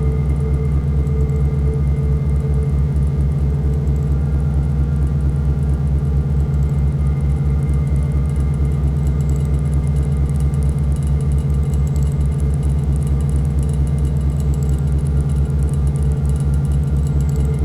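Dark ambient noise drone from synthesizers and a drone pedal: a dense, steady low drone of layered held tones with a fast flutter in the bass, holding unchanged throughout.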